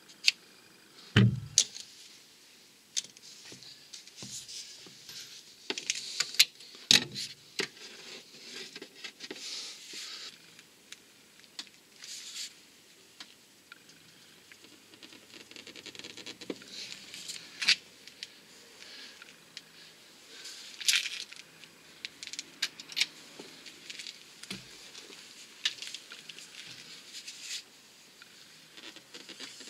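Tool handling at the crankshaft pulley bolt: a socket and long extension bar being fitted and worked, giving irregular small metallic clicks and taps, with a dull thump about a second in.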